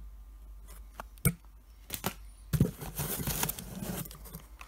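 Packaging being handled in a cardboard box: a few sharp knocks about one and two seconds in, then about two seconds of rustling and scraping as boxes are moved about.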